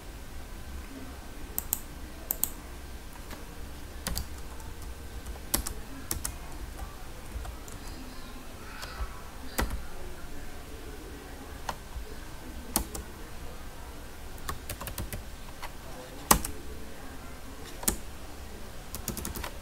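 Typing on a computer keyboard: irregular, scattered keystrokes as code is entered, over a steady low hum.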